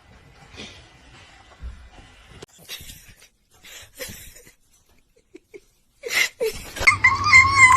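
Faint scattered rustles and short noises, then near the end a cat starts a loud, long, wavering yowl.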